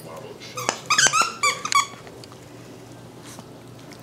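Squeaky plush dog toy squeaked several times in quick succession, short high sharp squeaks with clicks, all in the first half.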